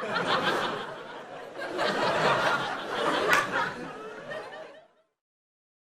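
Audience laughing in two swells, the second longer, then dying away; it ends in silence about five seconds in.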